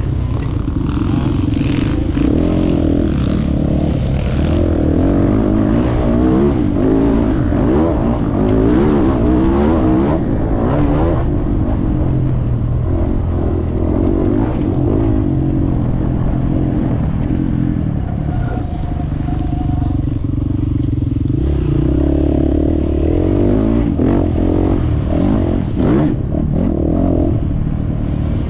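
450 cc motocross bike engine running hard under race load, its pitch rising and falling over and over as the rider opens and closes the throttle and shifts, with clattering from the bike over the track.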